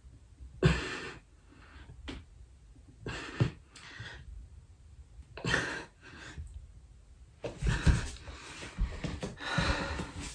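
A man breathing hard while doing push-ups: one strong breath with each push-up, about every two and a half seconds, turning into quicker, heavier panting near the end as he finishes the set.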